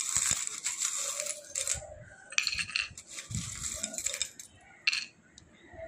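Small metal charms, tiny keys and trinkets, jingling and clinking as a hand stirs and rummages through them in a bowl. The rattling comes in two spells, then a single clink about five seconds in.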